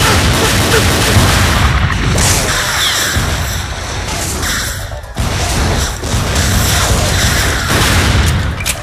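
Film soundtrack of a gunfight: loud, continuous handgun fire with bullets striking and ricocheting off a concrete wall, over music. The firing breaks off briefly about five seconds in.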